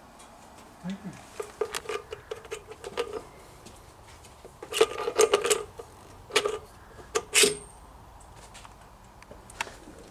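Light metallic clinks and knocks from a carburettor flange and its fittings being handled and fitted over the manifold studs, in several short clusters. The busiest cluster is about halfway through, and one clink near three-quarters of the way rings on briefly.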